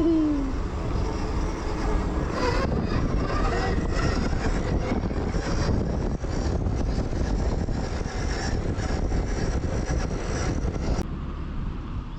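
Zero FX electric motorcycle ridden off-road: a steady rush of wind noise and rolling tyres on the trail, with a rider's short falling "whee!" at the start.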